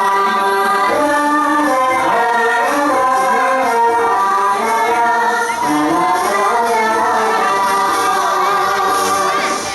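Thai likay theatre music: a melody sung in long, held notes that slide from pitch to pitch, over the accompanying ensemble.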